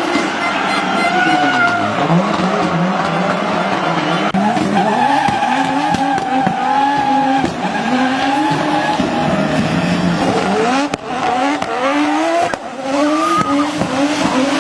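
Audi Sport Quattro S1 rally car's turbocharged five-cylinder engine revving hard, its pitch climbing and dropping in quick repeated cycles through the gear changes, with tyres squealing as the car slides on tarmac. The revs cut sharply twice near the end.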